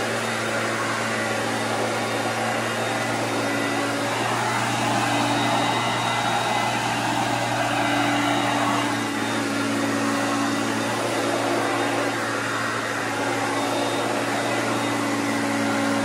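Vintage Hoover Concept upright vacuum cleaner running steadily as it is pushed over carpet and a rug: a constant motor hum under the rush of air.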